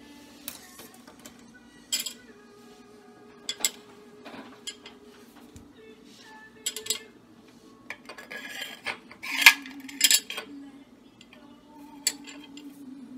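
Metal lamp parts clinking and knocking on a stone countertop as a brass lamp pipe is fitted through a metal lamp base. Scattered sharp clicks, with the loudest cluster of knocks about nine to ten seconds in.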